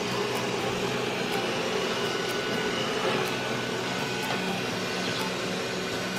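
Roborock S5 Max robot vacuum running while cleaning: a steady motor hum with a faint whine.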